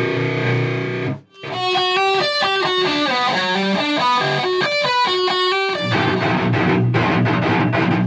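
Metalcore music. A distorted passage breaks off about a second in, then an electric guitar picks a clean melodic line of single notes. About six seconds in, the heavy distorted guitars and bass come back in.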